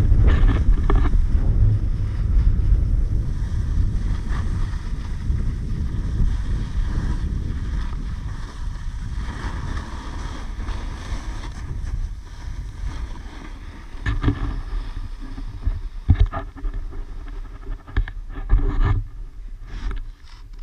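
Wind buffeting the action camera's microphone and a snowboard sliding over snow during a descent, loud at first and easing off. Several short scrapes and knocks come near the end as the board slows and the rider sits down in the snow.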